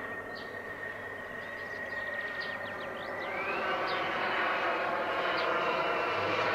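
Miniature gas turbine of a radio-controlled model jet in flight, a steady high whine over a rushing jet noise. About three seconds in the whine rises in pitch and the sound grows louder.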